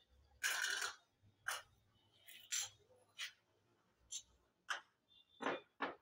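A string of short, irregular clicks and rustles, about eight in six seconds. The first, about half a second in, is a longer rustle, and the rest are brief sharp clicks.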